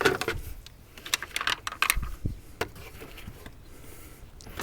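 Irregular sharp plastic clicks and taps as push-in trim clips and a plastic grille panel on a 2023 Subaru Crosstrek are worked loose by hand, thickest in the first three seconds.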